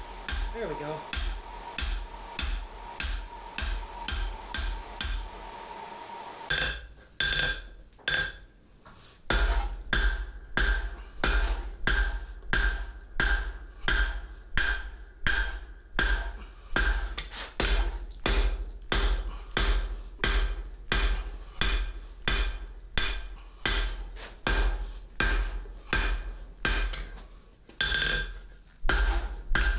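Blacksmith's hammer blows on hot steel bar over an anvil, a steady run of about two blows a second, each with a ringing note. A steady hum beneath the first six seconds stops, and the hammering pauses briefly about eight seconds in before resuming.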